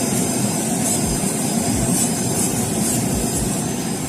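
Nissan Maxima running with its AC blower on full, a steady low drone, with several short high hisses of Lysol aerosol disinfectant being sprayed into the air intake.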